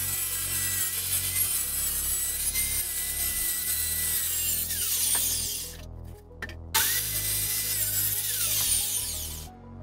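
Handheld circular saw cutting plywood, its motor running with a steady high whine. It spins down about five seconds in, starts up again with a rising whine after a short break and cuts again, then winds down near the end.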